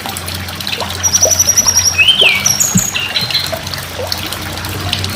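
Tledekan gunung singing: a song of rapid, high, thin trills and quick whistled notes sliding up and down, loudest in the middle, over a steady low hum and a trickling-water hiss.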